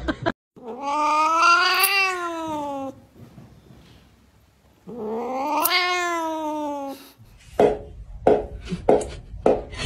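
A cat giving two long drawn-out yowls, each rising and then falling in pitch, while its claws are being clipped. Near the end comes a quick run of short sharp sounds, about three a second.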